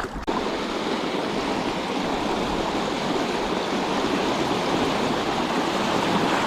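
River water rushing steadily, starting abruptly about a third of a second in.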